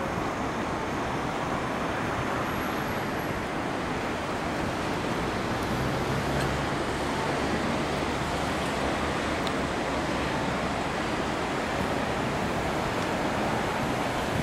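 Steady rushing of the Nishiki River running over shallow rapids below a wooden bridge, with a low rumble joining for a few seconds midway.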